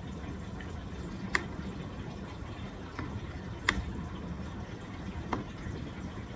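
A few sharp computer mouse clicks, four spread over several seconds with the second and fourth loudest, over a steady low background hum.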